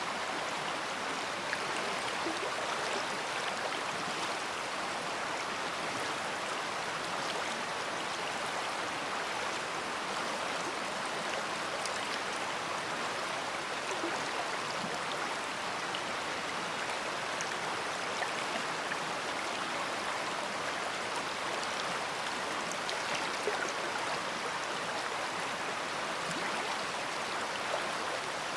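Large river flowing, a steady rushing of water with small splashes and droplet ticks scattered through it.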